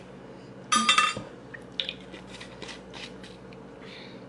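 Metal spoon clinking against kitchenware: a quick cluster of ringing clinks about a second in, then a few lighter taps.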